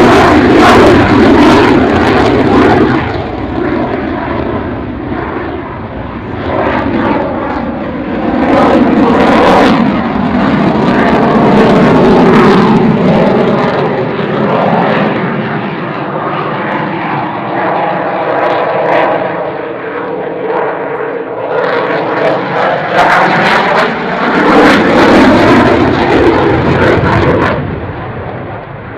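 Dassault Rafale fighter jet flying display passes, with jet engine noise that swells and fades several times and engine tones that bend in pitch as the aircraft flies by.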